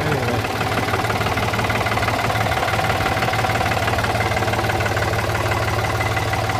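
New Holland tractor engine idling steadily.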